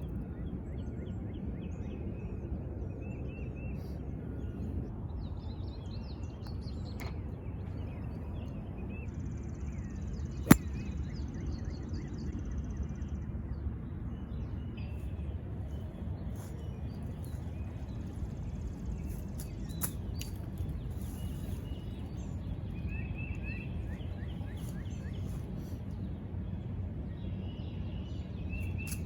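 Outdoor ambience: a steady low rumble with birds chirping on and off, and one sharp, loud crack about ten seconds in, a golf club striking a ball. A couple of fainter clicks come later.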